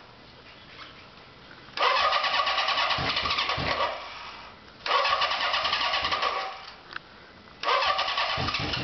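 A Denvers chopper's motorcycle engine being cranked on its electric starter in three bursts of a few seconds each, with short pauses between, as it fails to start; near the end the engine begins to fire.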